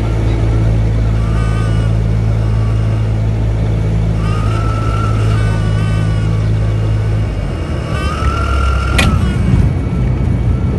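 Cessna 172's engine droning at low power inside the cabin, its hum changing and dropping about seven seconds in. Over it the stall warning horn sounds in several short wailing tones as the plane flares to land. A brief sharp sound comes about nine seconds in, at touchdown.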